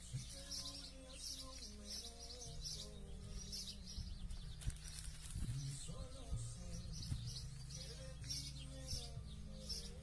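Birds chirping over and over in short high calls, with music playing underneath.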